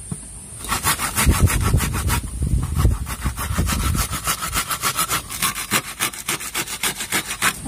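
Garlic being grated by hand: quick, even rasping strokes, about five a second, starting under a second in.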